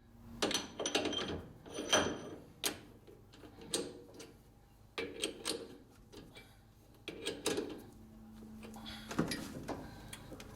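Irregular light clicks and knocks of tools and metal being handled at a metal lathe, with a faint low hum for a while near the end.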